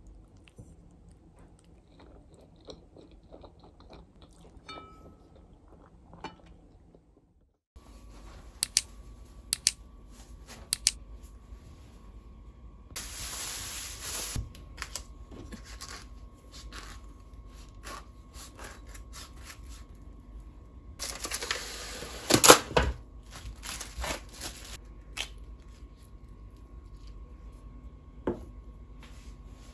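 Faint sounds of eating spaghetti with a fork. After a cut, a plastic bag crinkles loudly twice as food is unwrapped, with knocks on the counter, and near the end a knife cuts a wedge of cabbage on a plastic cutting board.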